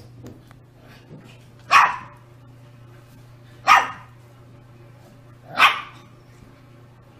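A puppy barking three times, short single barks spaced about two seconds apart.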